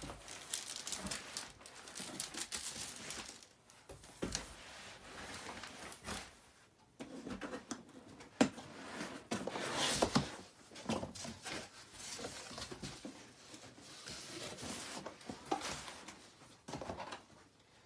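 A cardboard box being opened and unpacked by hand: cardboard and packaging scraping, tearing and crinkling, with a few sharp knocks as the box and items are handled.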